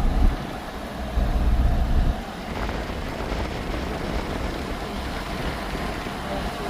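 Wind buffeting the microphone in heavy low gusts at the start and again about a second in, over a steady outdoor rush.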